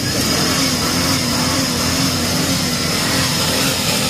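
Nissan off-road SUV engine held at high revs, its pitch wavering slightly, as the vehicle struggles stuck in deep mud.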